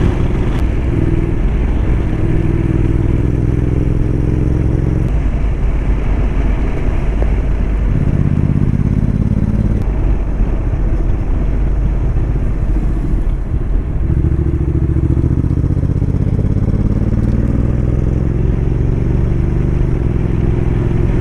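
Motorcycle engine running while riding, heard from on the bike, its note rising and falling as the throttle and revs change, over steady rushing road and wind noise.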